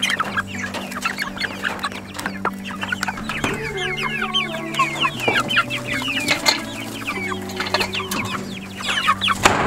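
A flock of white meat chickens clucking, with many short calls overlapping all the time.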